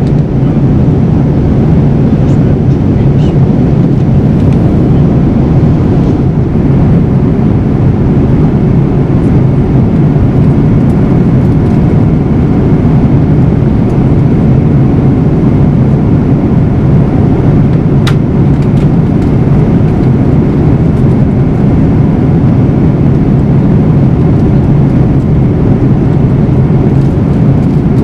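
Steady cabin noise of a Boeing 787-9 at cruise, heard inside the cabin from a window seat beside the wing: the even, low roar of its GE GEnx-1B engine and the airflow over the fuselage, unchanging throughout.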